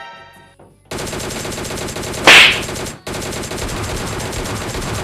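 Rapid machine-gun fire sound effect, a dense rattle played twice in a row, each run about two seconds long with a louder blast partway through.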